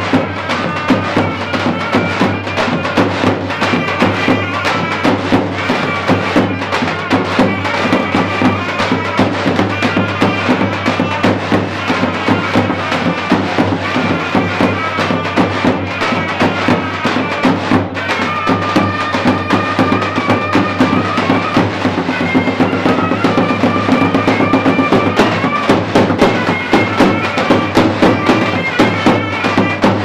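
Traditional Turkish folk dance music: a shrill, reedy wind melody over a steady, driving drum beat, playing continuously.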